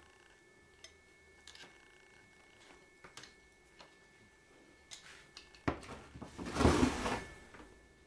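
Light, scattered clicks of hand tools on metal engine parts, then, about six seconds in, a loud scraping rattle lasting a couple of seconds as a part is worked loose.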